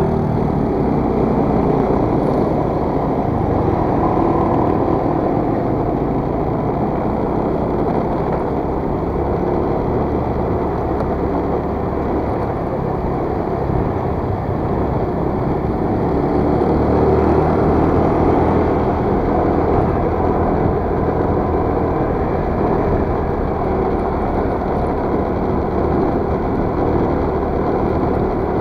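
Motor scooter's small engine running under way, with a steady rush of wind and road noise.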